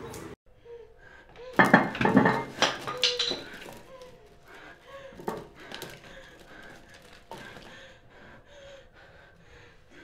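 Small objects clattering and knocking as bathroom items such as hairbrushes are handled and rummaged through in a basket. The clatter is loudest about two seconds in, followed by lighter knocks and clicks.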